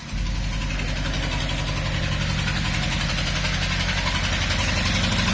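Saab engine idling roughly with a steady, pulsing beat, which the owner likens to the lumpy idle of a cammed engine; the rough running comes with a loss of power.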